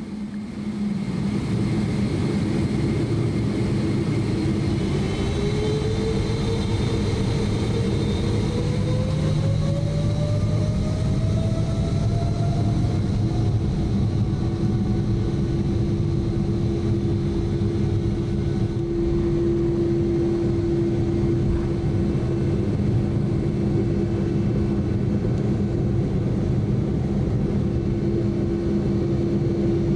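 Boeing 777-300ER's GE90-115B turbofan, heard from inside the cabin, spooling up to takeoff thrust. A rising whine climbs over the first dozen seconds, then settles into a steady running note through the takeoff roll.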